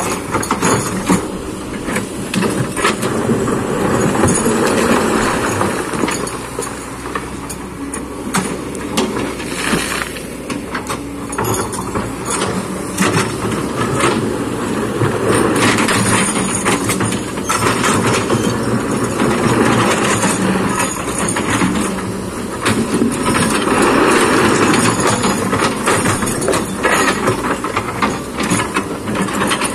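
Kobelco hydraulic excavator running and working, its engine rising and falling under load, with repeated knocks and scraping of the bucket against rock and soil.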